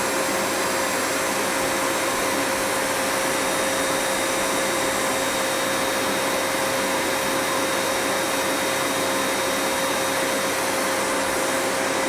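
Electric air blower running at a steady speed: a steady whine over the rush of blown air.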